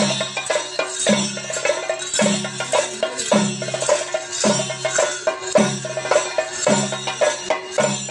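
Kerala ritual percussion for a theyyam dance: drums and small hand cymbals playing a loud, dense rhythm that repeats in a cycle about once a second.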